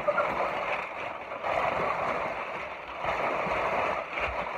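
Crumpled packing paper rustling and crinkling in uneven swells as a long length of it is pulled out of a shipping box.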